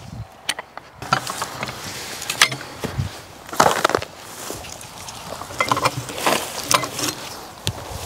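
Irregular knocks and clinks of a steel forestry multi-tool, a cant hook and log tongs in one, being handled and hooked onto a log, with about half a dozen sharp strikes spread through.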